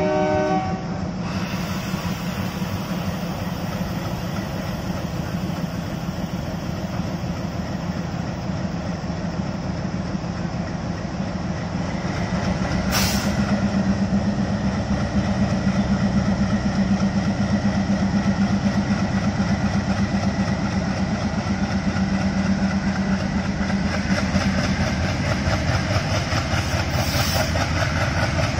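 Twin ALCO WDM3A diesel locomotives passing slowly at close range, their engines running with a steady low throb that grows louder about halfway through. A locomotive horn sounds briefly at the very start.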